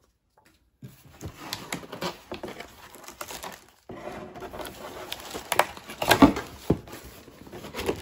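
Cardboard packaging being handled and lifted out of a box, with scraping, rustling and plastic wrap crinkling. There are several sharp knocks, the loudest about six seconds in.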